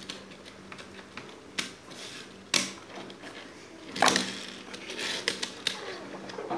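Small plastic fingerboard ramp pieces being handled and set down on a tabletop: scattered sharp clicks and knocks, the loudest about four seconds in.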